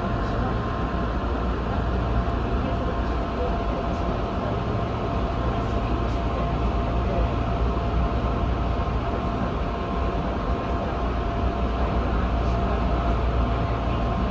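Electric train standing at a station, heard from inside: a steady low hum from its onboard equipment, with two thin whining tones held steady over it.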